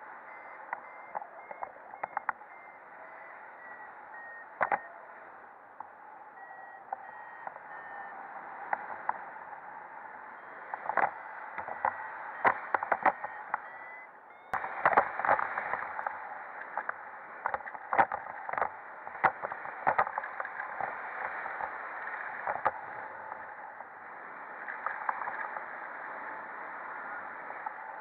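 Airflow rushing over the camera in paraglider flight, with scattered clicks and knocks, jumping louder about halfway. In the first part, faint short evenly spaced beeps, slowly falling in pitch, typical of a flight variometer.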